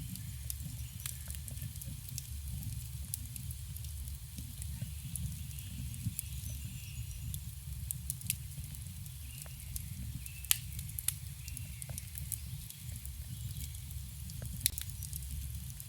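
Campfire burning, with a steady low rumble and frequent small crackles and pops from the wood. A couple of sharper, louder pops come about two-thirds of the way through and near the end.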